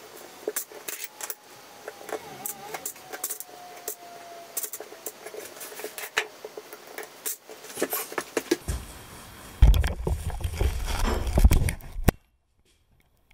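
Light plastic clicks and rattles as plastic tile spacers are picked from a plastic tub and set between porcelain floor tiles. Towards the end a louder low rumbling noise takes over, then the sound cuts off abruptly.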